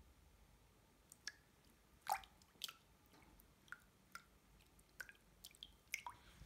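Small water plips and drips from feet moving in a basin of water: about a dozen short, scattered drop sounds, each falling quickly in pitch, the loudest about two seconds in.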